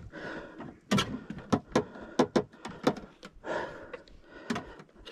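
A string of irregular sharp knocks and clicks, about two a second, with some louder than others.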